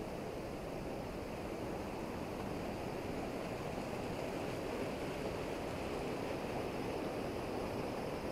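Steady rush of splashing water from a nearby stream, sounding like rain, a little louder in the second half.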